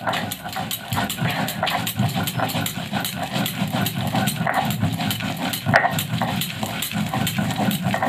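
A stone roller rubbed rapidly back and forth on a flat stone grinding slab (shil-nora), crushing fried peanuts, dried red chilli and garlic into paste. It makes a continuous rough grinding of quick, even strokes.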